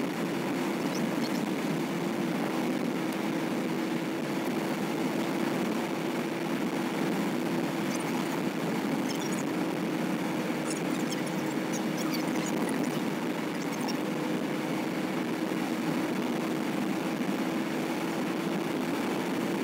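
Steady in-cabin road and engine noise of a vehicle cruising on a highway, with a constant low drone and a few faint light ticks partway through.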